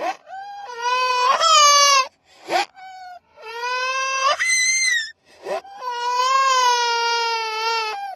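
A small child crying: a string of high-pitched, drawn-out cries broken by short gasping breaths, one cry rising in pitch at its end and the last held for over two seconds.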